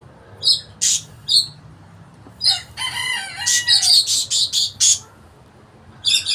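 Budgerigars giving alarm calls at a snake: a few sharp, harsh calls, then a dense run of them with a brief warbling call mixed in, and another burst near the end.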